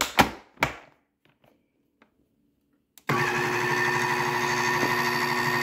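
A few knocks of handling, then about three seconds in an electric blender switches on abruptly and runs steadily, blending a thick, too-dry horseradish and mustard-seed paste.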